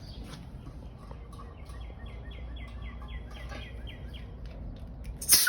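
Compressed air from an air tank hissing into a new bicycle inner tube in one short, loud blast near the end, giving the flat tube a little air so it holds its shape for fitting into the tire.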